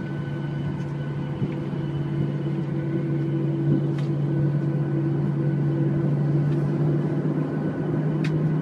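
Airliner engines and cabin noise heard from inside the cabin as the aircraft rolls along the ground: a steady low drone with a hum, the hum stepping slightly up in pitch near the end.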